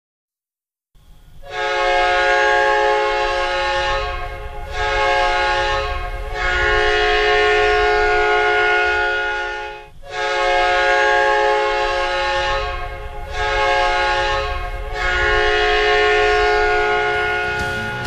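Hockey goal horn, a chord air horn of several notes at once, sounding in six blasts starting about a second in: long, short, long, then long, short, long again.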